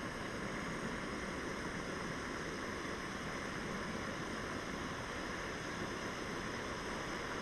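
Jetboil Flash canister gas stove burning on full, a steady noise with no breaks, while the water in its cup heats toward the boil.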